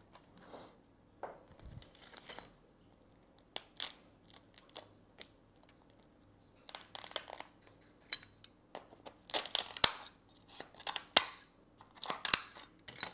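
Kitchen scissors snipping and crunching through the shell of a steamed mud crab's claw, with the shell cracking and crackling between the hands. The snaps come sparsely at first, then thick and loud in the second half.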